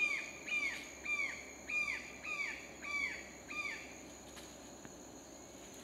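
A bird calling a quick series of down-slurred notes, about two a second, stopping about four seconds in. Behind it, a steady high insect drone.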